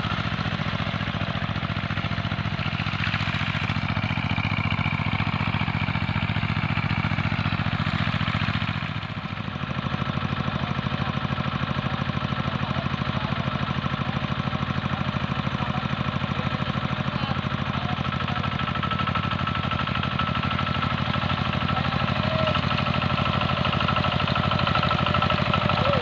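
Two-wheel hand tractor's engine running steadily while it pulls a harrow, with a brief dip in level about nine seconds in.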